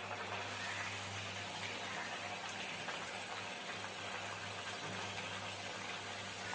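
A sweet cucumber-and-jaggery rice-flour vada deep-frying in hot oil in a kadhai: the oil bubbles and sizzles in a steady hiss around the dough, over a low steady hum.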